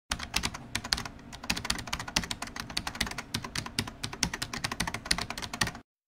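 Computer keyboard typing: a quick, uneven run of keystroke clicks, several a second, that stops abruptly just before the end.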